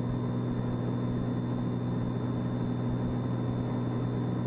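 Steady cabin drone of a Piper Mirage in flight: its turbocharged Lycoming six-cylinder engine and propeller run at an even pitch, with a constant low hum under a broad rushing noise.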